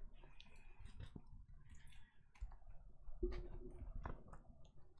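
Faint scattered clicks and soft rustles of a large diamond painting canvas being handled and rolled up by hand.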